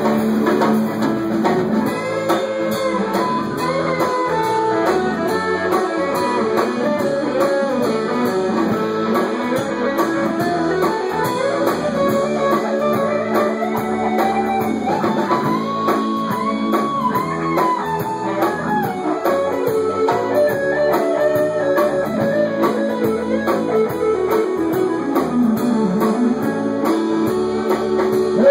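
Instrumental break of a folk-country song: guitars playing, with a lead melody line that climbs and falls, and no singing.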